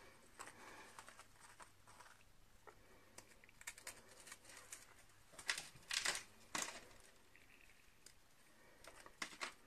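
Butter biscuits being laid and pressed onto a soft chocolate layer in a cling-film-lined tin: faint scattered taps and rustles, with a cluster of louder ones about five and a half to seven seconds in.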